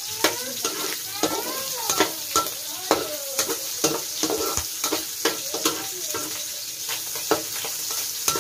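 Cubes of meat sizzling in hot oil in a wok as they are browned, while a metal utensil stirs them, scraping and knocking against the pan every half second or so, with short squeaks as it drags across the surface.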